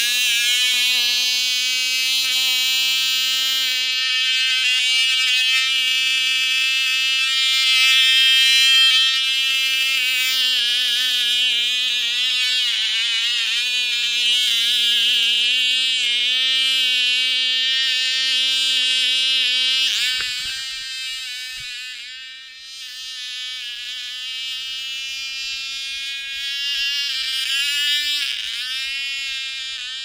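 Cox .049 two-stroke glow engine on a small RC model plane running flat out with a high-pitched whine. About two-thirds of the way through, the whine drops away as the plane is launched, then wavers and bends in pitch as it flies off.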